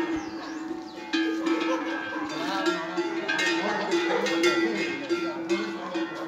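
Cowbell hung on a steer's neck clanking irregularly, with a steady ringing tone that carries on under the clanks.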